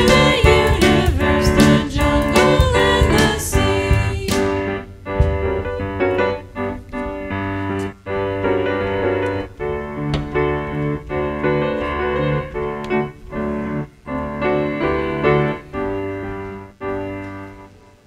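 Worship band of singers, drum kit and piano finishing a song: the voices and drums with cymbals stop about four seconds in, and the piano plays on alone, more softly, fading out near the end.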